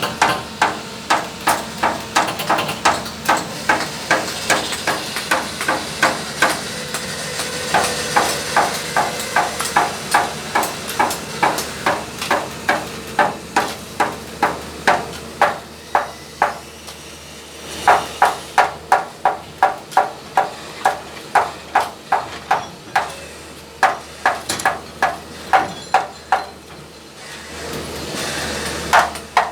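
Hammer blows struck in a steady rhythm, about three a second, in long runs with short pauses.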